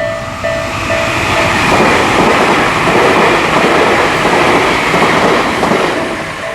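Isesaki-type level-crossing bell dinging about twice a second, drowned out a second and a half in by a train passing over the crossing with its wheels clattering. The bell comes through again near the end.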